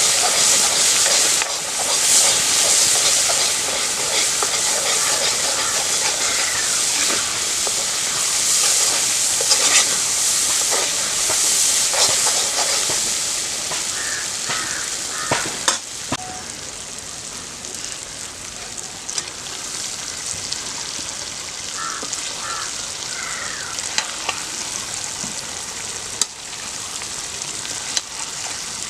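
Food frying and sizzling in a pan while it is stirred, with occasional scrapes and knocks of the spoon. The sizzle grows quieter in the second half.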